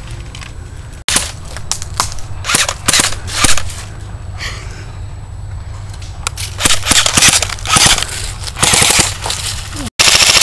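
Airsoft rifles firing several rapid bursts of quick sharp cracks, with single shots between the bursts.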